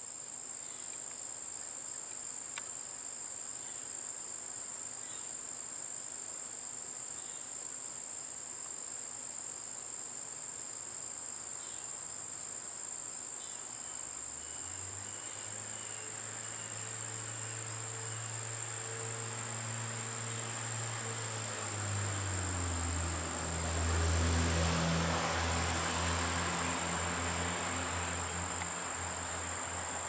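Steady high-pitched chorus of insects. About halfway through, a low engine-like hum comes in beneath it and grows louder toward the end.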